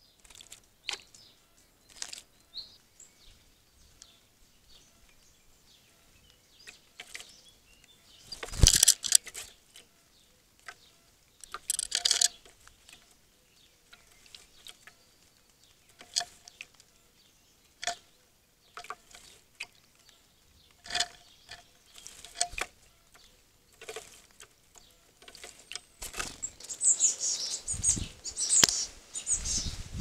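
Tits bathing in a shallow metal bird-bath dish: short splashes and wing flutters in the water come in scattered bursts, with two louder flurries early on and a long run of continuous splashing near the end.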